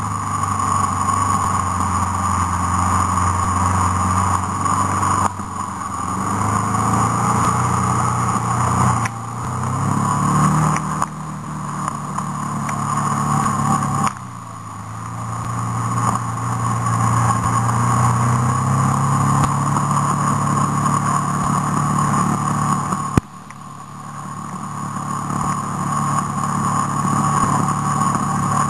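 Vehicle engine driving along, the throttle backing off and picking up again several times, so the engine note falls away and climbs back. There is a sharp knock about 23 seconds in.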